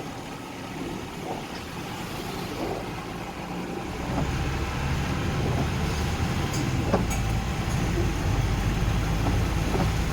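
Street traffic: a motor vehicle's engine running, getting louder with a heavier low engine sound from about four seconds in, with a few faint clicks.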